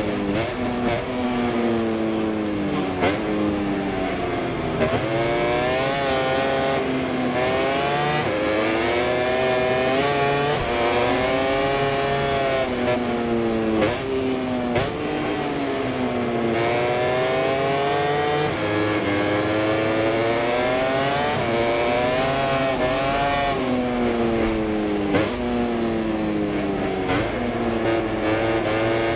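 MotoGP racing motorcycle engine heard from on board at racing speed. It revs up through the gears in repeated rising climbs, each cut short by a quick upshift, then falls in pitch through downshifts under braking for the corners.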